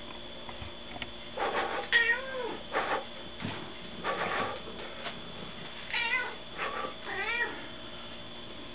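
Domestic tabby cat making a run of short, chirping meows, each bending up and down in pitch, starting about a second and a half in and going on for about six seconds.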